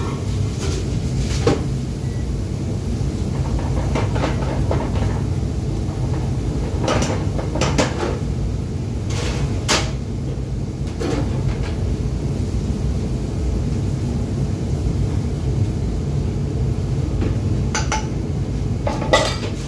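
Steady low rumble of a commercial kitchen's extractor hood and lit gas burners, with scattered knocks and clinks of a pan and utensils on the range; the sharpest knock comes near the end.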